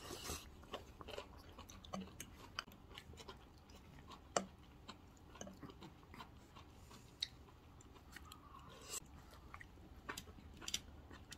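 Close-up eating sounds: chewing steamed napa cabbage and meat, with small clicks of a metal fork against the plate, the sharpest about four seconds in.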